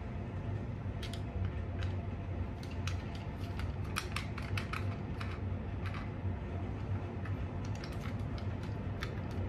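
Irregular small plastic clicks and taps as the parts of a rear-view-mirror phone holder are handled and its ball joint is pushed into the bracket, over a steady low hum.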